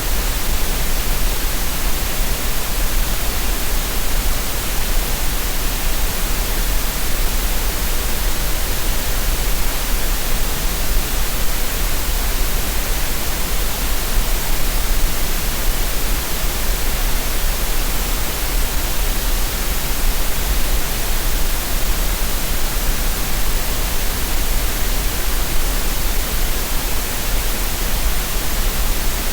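Green noise: a steady, unchanging hiss of synthetic noise with a deep rumble underneath.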